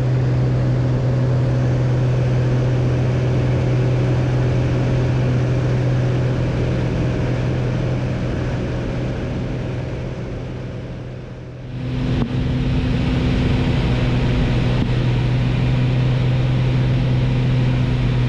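Single-engine light aircraft's piston engine and propeller droning steadily in the climb, a strong low hum under a wash of wind and engine noise. The drone dies away over a few seconds and cuts back in about twelve seconds in with more hiss, now as heard inside the cabin.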